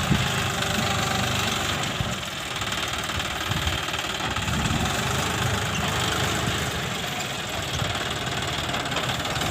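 John Deere 5050D tractor's three-cylinder diesel engine running steadily while pulling a plow, heard close from the driver's seat.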